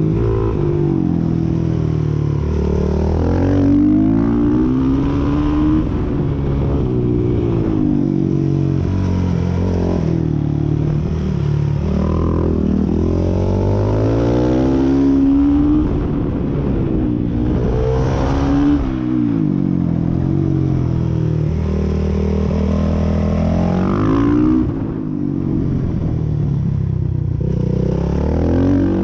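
Suzuki 450 supermoto's single-cylinder four-stroke engine heard from on board at full race pace, revving up hard through the gears and dropping back over and over as it accelerates out of corners and brakes into the next.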